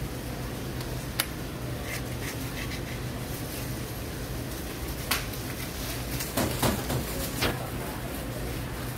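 Steady low hum, with a few sharp clicks and a short run of scraping and squeaking a little past halfway, from a metal icing spatula working against the buttercream and the cardboard cake board.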